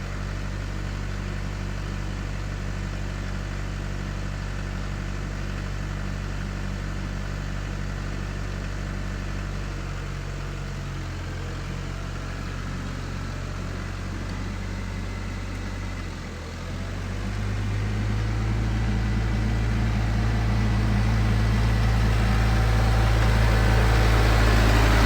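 Tractor engine running steadily. About two-thirds of the way through it dips briefly, then picks up and grows steadily louder.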